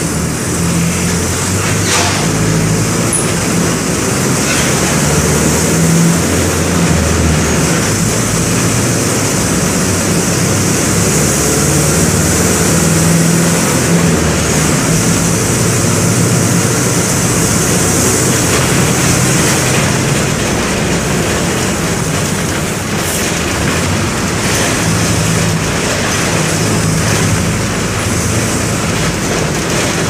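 Mercedes-Benz OM-924 LA four-cylinder inline turbodiesel of an OF-1722M city bus, running steadily under way, heard from inside the bus. Its low engine note shifts in pitch a few times.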